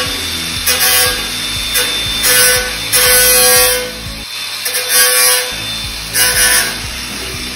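Cordless drill whirring in about six short bursts, driving fixings into steel trunking. Background music with a steady beat plays underneath.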